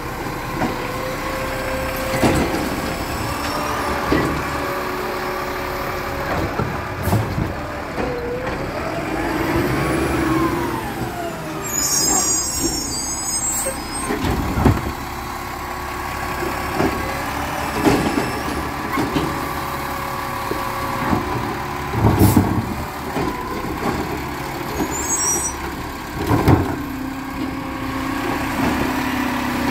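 Garbage truck at work: the engine runs steadily with a whine that rises and falls about ten seconds in. A short hiss of air comes a couple of seconds later, and sharp clanks and bangs recur every few seconds.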